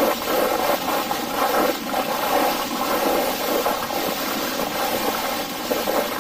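Steady rushing noise effect with no deep rumble, flickering slightly in loudness, laid under an animated title sequence.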